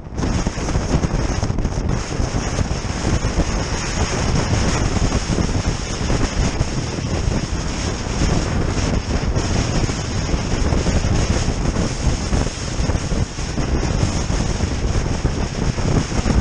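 Wind buffeting the microphone of a GoPro camera stuck to the outside of a car driving at speed, a loud, steady rush mixed with road noise.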